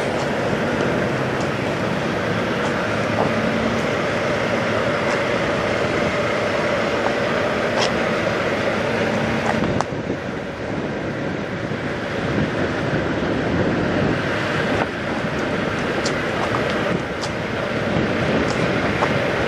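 Semi truck diesel engine idling steadily, with a few light clicks.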